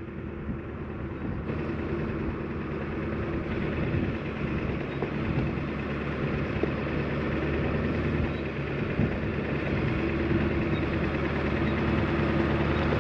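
Ford F350's 7.3-litre Powerstroke turbo-diesel V8 running at low revs, steady, as the heavy truck crawls up a rocky grade in its lowest gear. It grows gradually louder as the truck approaches.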